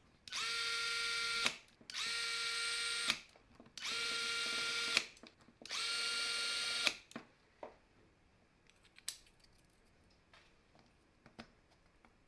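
A cordless drill/driver with a long screwdriver bit drives screws into a drill's gear housing in four short runs, each a second or so. Each run spins up to a steady whine and stops with a sharp click. Faint clicks of parts being handled follow.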